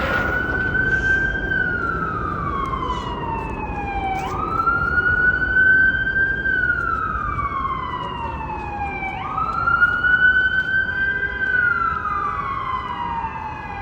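Emergency vehicle siren sounding a slow wail: each cycle climbs quickly, holds high for a couple of seconds, then falls slowly, repeating about every five seconds. Steady city traffic noise runs underneath.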